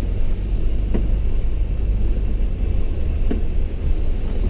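Four-wheel-drive pickup driving slowly on a slushy, sleet-covered road, heard from inside the cab: a steady low rumble of engine and tyres, with two faint ticks.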